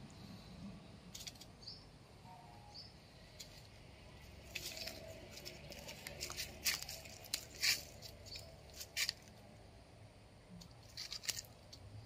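Dry leaves and twigs crackling and rustling in quick clusters as cats move and paw at a small green snake on leaf-littered ground, densest in the middle and again near the end.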